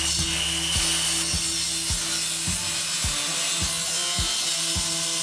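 Hand saw rasping through a thin plywood sheet, over background music with a steady drum beat.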